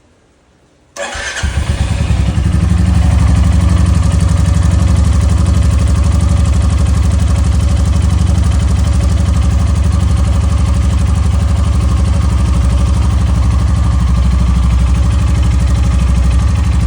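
Royal Enfield Classic 350 single-cylinder engine started about a second in, then idling steadily with a tick-tick tapping noise. The owner has been told this may come from the engine's valve guides or from low engine oil.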